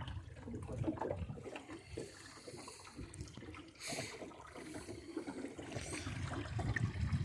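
Water lapping and trickling against the hull of a small sailboat under way in a light breeze, with one short louder rush about four seconds in.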